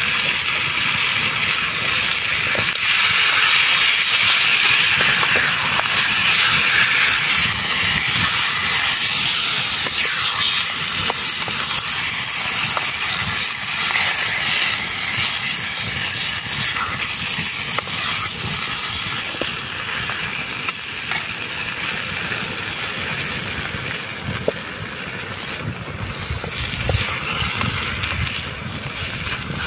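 Chicken frying in a pan over an open wood fire: a steady sizzle and hiss with small crackles, slowly growing quieter.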